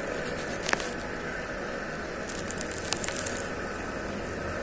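Handling of a fishing rod and spinning reel, a few light clicks and ticks over a steady outdoor background hiss, right after the line has snapped on a snag.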